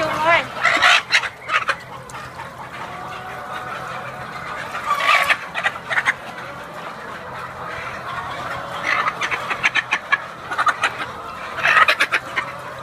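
Hen squawking and clucking while held and dunked in a barrel of liquid mite treatment, with the liquid splashing. The loudest calls come right at the start and again at about 5, 9 and 12 seconds in.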